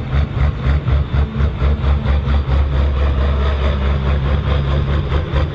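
New Holland 8970 tractor's diesel engine running steadily at low revs, with a deep, even throb, as the tractor moves slowly across the track.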